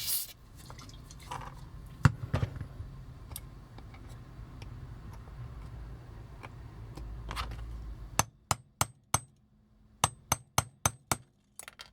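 Small hammer tapping a metal pin punch to drive the axle pin out of a die-cast toy's wheel. It starts with light handling and a single click, then about ten quick, sharp metallic taps in a row over the last few seconds.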